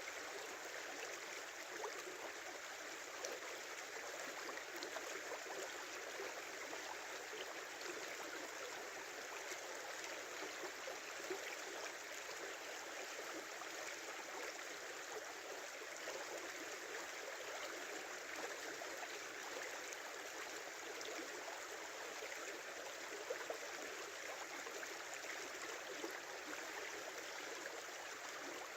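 A small winter river running over stones between snow and ice: a steady rush and babble of water, with an occasional small splash.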